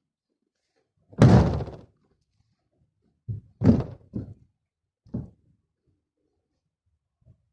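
The hinged HDPE lid of a cargo sled, held up by gas struts, closing with a heavy thud about a second in, followed by a few lighter knocks as it is handled.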